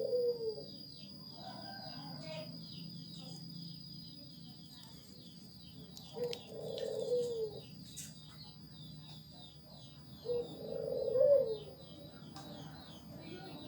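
A dove cooing three times, each coo about a second and a half long and dropping in pitch at the end, over a steady high-pitched rapid chirping in the background.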